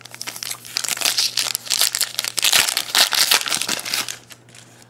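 Foil wrapper of a 2011 Donruss Elite football card pack crinkling as it is torn open by hand, a dense run of crackles that stops about four seconds in.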